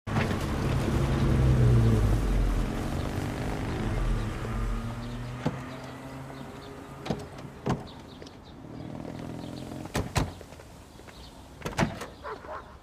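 An old saloon car's engine running as it drives past and pulls up, loud at first and then fading. Then come a series of car-door clicks and thumps, two close together about ten seconds in and a cluster near the end.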